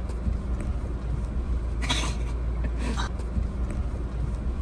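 Suzuki Jimny crawling over rough dirt in four-wheel-drive low range, heard from inside the cabin: a steady low engine and drivetrain rumble, with two short hissing noises about two and three seconds in.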